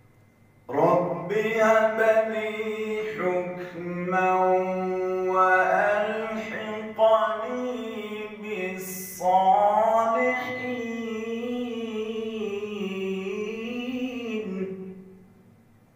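A male qari recites the Quran in the melodic tajweed style as one long, drawn-out phrase. The notes are held, wavering and ornamented. It begins about a second in and trails off near the end.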